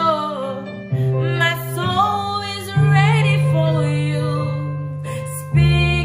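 Slow worship music: a woman singing long, wavering notes over an instrumental backing of held bass notes that change every second or two.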